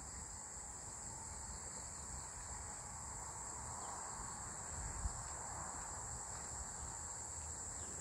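A steady, high-pitched insect chorus that stays even throughout, with a faint low rumble underneath.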